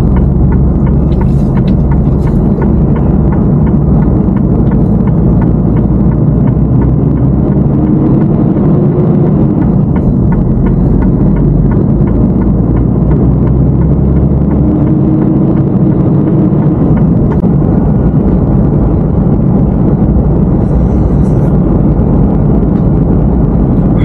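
Heavy truck driving at highway speed, heard from the cab: a steady, loud low rumble of engine and road noise. A faint tone rises briefly twice.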